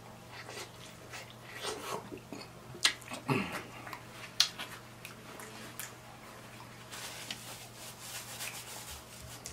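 Close-up eating sounds: wet chewing and lip smacks with a few sharp mouth clicks as a man eats seafood boil, then a papery rustle near the end as a paper napkin wipes his mouth.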